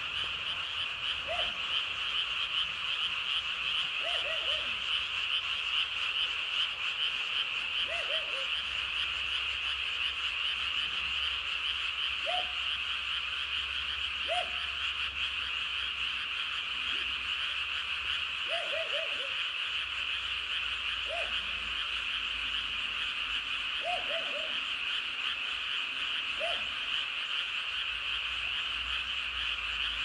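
Frog chorus at night: a dense, unbroken high-pitched chorus of many frogs, with a lower croaking call standing out every two to four seconds.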